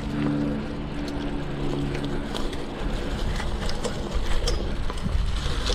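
Bicycle ridden over a rough, sandy trail: a steady low rumble of riding noise with frequent small rattles and clicks from the bike.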